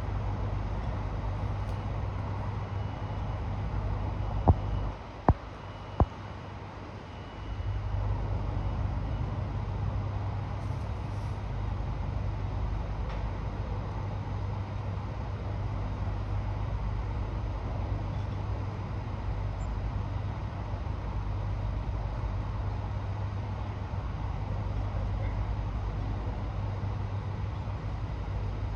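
A heavy engine running steadily with a low hum. The hum dips for a couple of seconds about five seconds in, around a few sharp clicks.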